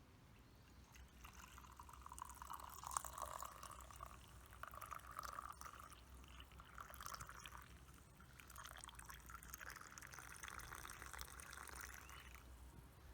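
Faint liquid pouring, coffee being poured into a cup, in two stretches of several seconds with a short break about halfway.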